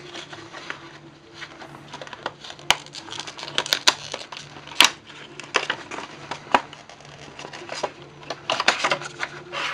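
Handling noise of an unboxed PC case fan and its packaging: irregular clicks, taps and crackles of plastic and cardboard, over a faint steady low hum.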